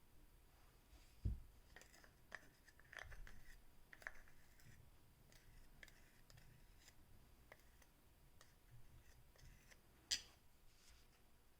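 Faint scattered clicks and light scrapes of small objects being handled on a work surface, with a low knock about a second in and a sharp click near the end.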